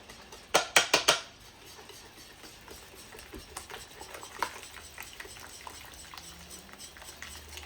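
A utensil clinking sharply against a mixing bowl about four times near the start, then stirring pancake batter in the bowl with many small faint clicks and scrapes.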